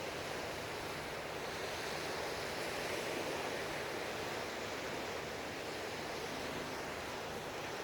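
Atlantic Ocean surf: a steady wash of waves on the shore.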